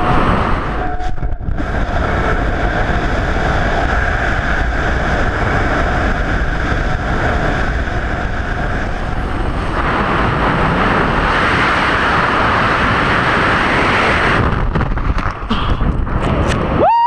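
Freefall wind rushing over a BASE jumper's helmet-camera microphone, a loud steady rush that grows stronger about ten seconds in. Near the end it breaks up into flutter and gusts as the parachute opens.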